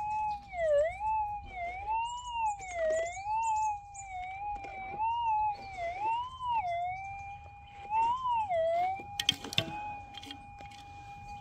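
Minelab GPZ 7000 metal detector's threshold tone warbling up and down in pitch as the coil sweeps back and forth over a dug hole. This is the target signal of a buried object, which the prospector hopes is a gold specimen. After about eight and a half seconds the tone holds steady, and a few sharp clicks come about a second later.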